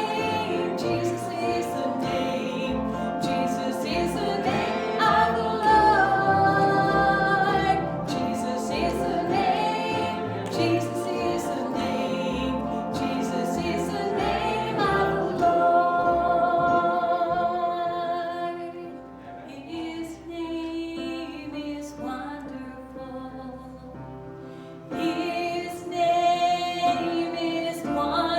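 Church worship music: a group of voices singing a slow worship song over instrumental accompaniment with steady bass notes. It drops to a quieter passage for a few seconds past the middle, then swells again near the end.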